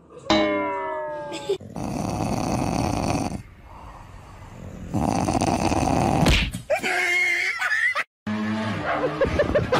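A dog growling in two long, rough stretches, with a quieter gap between them. Shorter, different sounds come before it at the start and after it near the end.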